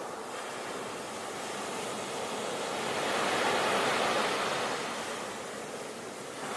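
Sea waves washing onto a shore: a steady rush of surf that swells to a peak about halfway through and then eases back.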